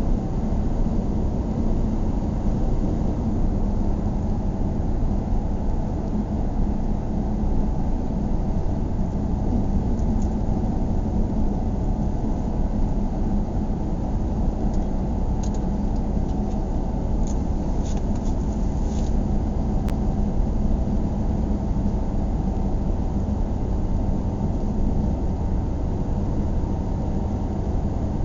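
Steady low rumble of a car driving slowly in town traffic: engine and road noise from the filming vehicle, with a few faint ticks about midway.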